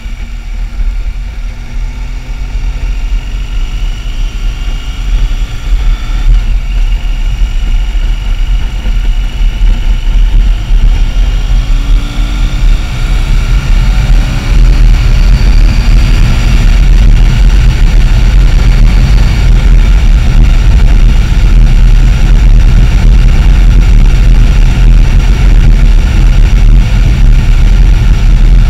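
Motorcycle riding and accelerating: the engine note rises, and a heavy wind rumble on the mounted camera's microphone grows louder as speed builds over the first fifteen seconds or so, then holds steady.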